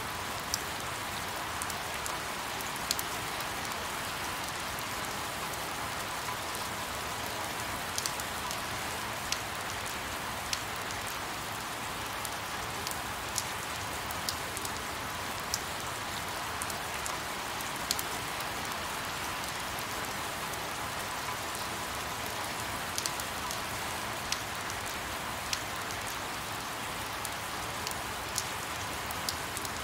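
Sped-up rain recording: a steady hiss of rain with scattered sharp clicks of single drops.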